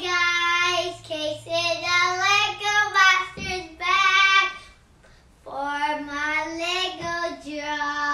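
A young boy singing a short unaccompanied tune in held, sung phrases, with a short break a little past halfway.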